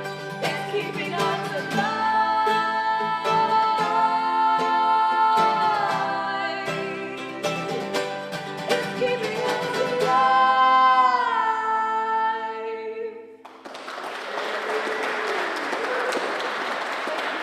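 The end of a live folk song: voices singing in harmony over acoustic guitars, the last sung notes sliding down. About thirteen seconds in the music stops and the audience applauds.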